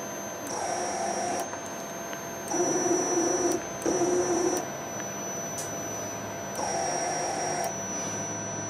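Closed-loop quadrature stepper motor on a MaxNC CNC's Z axis, driven by the repaired control board and jogged in four short moves of about a second each. Each move is a steady whine, two higher and two lower in pitch, and a faint high whine from the drive runs underneath between moves.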